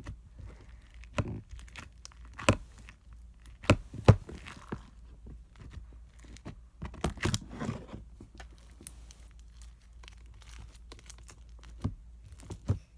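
Slime with fishbowl beads being squished, stretched and pulled apart by hand, giving irregular sticky pops, crackles and tearing sounds, with the loudest pops about two and a half and four seconds in.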